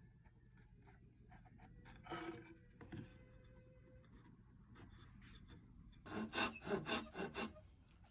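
A hand tool working wood: a short scrape, a light tap, then a quick run of rubbing strokes, about four a second, near the end.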